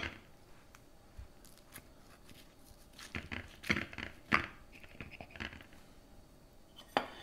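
A knife cutting through the baked pastry crust of a pot pie: a few short crackles and crunches of the flaky crust between about three and five and a half seconds in, then a single sharp click near the end.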